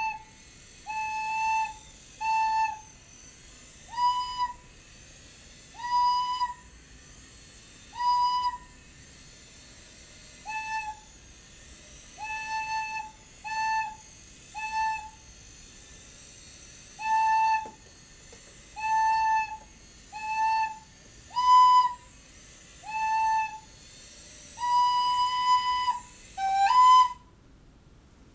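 Short, separate flute notes in the A and B range, about one every one to two seconds. A few of them step up from a lower note into a higher one. These are pitch commands to a sound-controlled robot: A turns it right, B turns it left, G then A starts it, and G then B stops it. A steady hiss lies under the notes.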